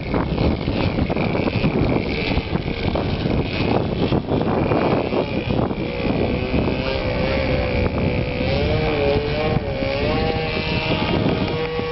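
OS 46 LA two-stroke glow engine on a flying Tribute 36 model airplane, a steady buzzing drone whose pitch wavers up and down from about halfway through as the plane moves about. Heavy wind buffeting on the microphone runs under it.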